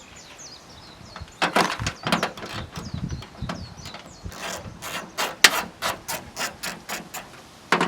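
Hand socket ratchet clicking in quick runs of strokes while hood bolts are loosened and backed out.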